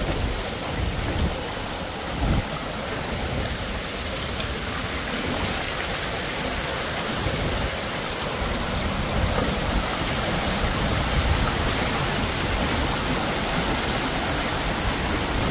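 Shallow stream of water rushing steadily down the rocky floor of a narrow slot canyon, spilling over rocks.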